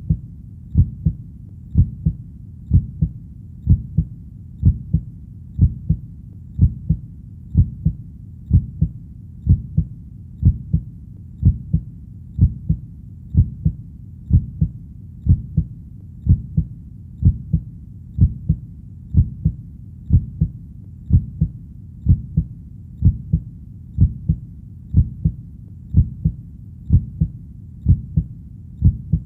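Heartbeat: a steady lub-dub, each beat a pair of low thumps, repeating about once a second.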